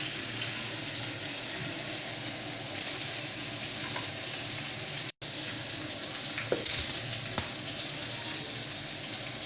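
Turkey pieces sizzling steadily in hot olive oil in a frying pan, with a brief dropout about five seconds in.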